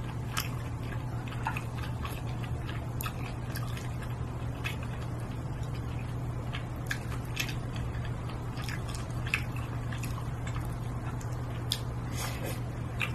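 Close-miked eating sounds: chewing and mouth smacks while eating chive-stuffed grilled squid, with scattered short clicks over a steady low hum.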